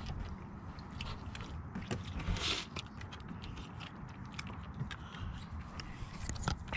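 A person eating cooked mud crab claw meat: chewing, with small scattered clicks and crackles of shell. Under it runs a low rumble of the camera being handled close to the microphone.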